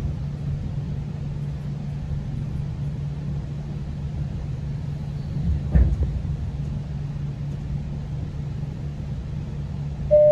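GO Transit commuter train heard from inside the coach: steady low rumble of the train running on the rails, with a single thump a little under six seconds in. Right at the end the first note of the onboard announcement chime begins.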